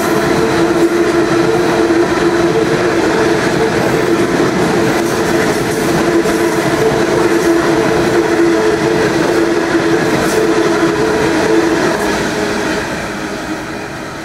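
Coal hopper wagons of a freight train rolling past, a steady rumble of wheels on rail with a droning tone through it. The noise fades over the last couple of seconds as the end of the train passes and draws away.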